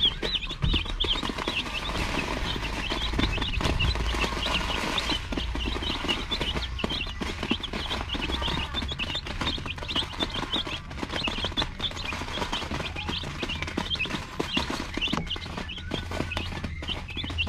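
A brood of eight Rhode Island Red chicks peeping constantly and rapidly while they peck at feed, with many small ticks of beaks striking the crumbles and the plastic sheeting.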